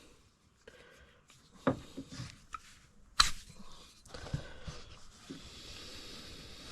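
Tools and packaging being handled: scattered small clicks, rustles and scrapes, with one sharp knock about three seconds in.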